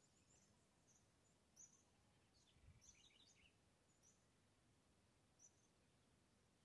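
Near silence, with a few faint, short, high chirps scattered through it.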